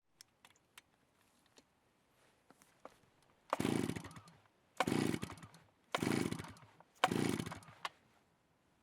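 Chainsaw sounding in four short bursts about a second apart, each fading away within a second, with near silence between them. Faint scattered clicks and ticks come before the first burst.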